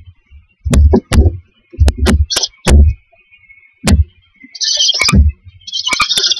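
Barn owl owlets in a wooden nest box: a string of dull thumps and knocks with sharp clicks as they shift about, and two short hissing calls near the end.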